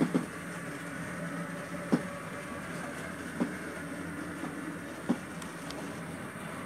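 HO-scale model freight train rolling along the track, a steady running hum with a sharp click every second and a half or so, the loudest right at the start.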